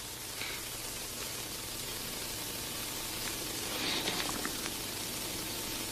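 Steady hiss of an old film soundtrack, with faint paper rustling about half a second in and again around four seconds in.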